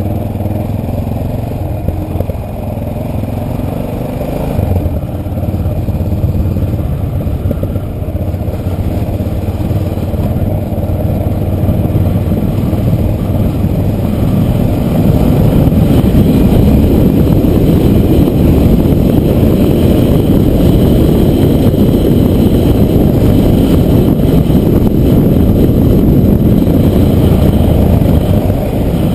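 Motorcycle engine running as the bike is ridden along a dirt track, heard through a helmet-mounted camera, with a dense low rumble that grows louder about halfway through as the bike speeds up.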